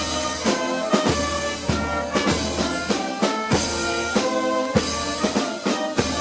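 A band playing a slow processional march: sustained chords with drum strokes, bass drum and snare, about every half to one second.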